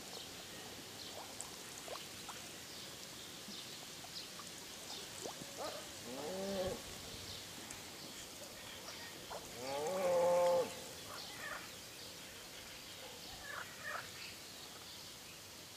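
Two short pitched animal calls, about three and a half seconds apart, the second longer and louder, over faint scattered high chirps.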